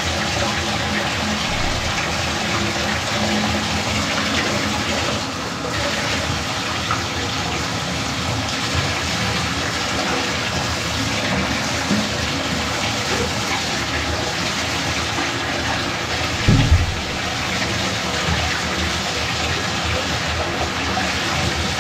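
Bathtub spout running steadily into the tub, the water splashing and swishing as gloved hands wipe the tub down. A brief low thump sounds about three-quarters of the way through.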